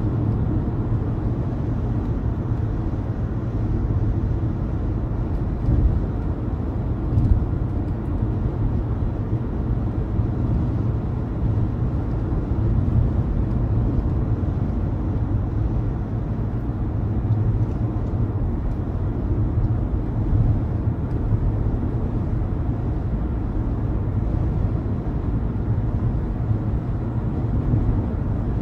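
Car driving on a highway: a steady low rumble of tyres and engine, with a couple of faint knocks about six and seven seconds in.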